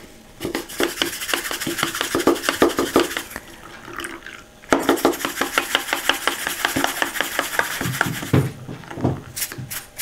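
Small plastic diamond-painting drills rattling and clicking in a tea strainer as they are swished and rinsed in soapy water, pausing briefly a little before the middle.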